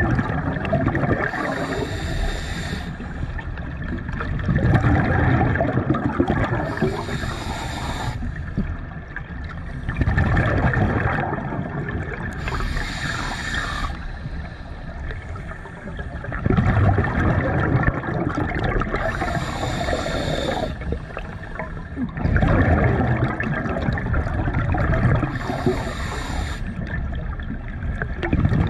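Scuba diver breathing through a regulator underwater. Each breath is a short hiss from the regulator's demand valve on the inhale, then a longer burst of bubbling exhaust bubbles on the exhale, repeating about every six seconds for about five breaths.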